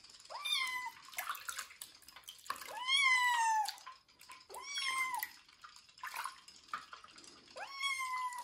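A young kitten meowing in protest while held in bath water: four meows a couple of seconds apart, each rising then falling in pitch, the second the longest and loudest.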